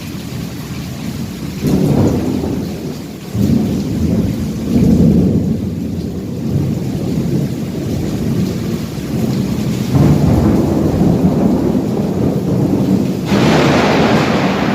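Thunder rumbling in several heavy rolls over steady rain. A sudden, louder, brighter thunder crash comes near the end.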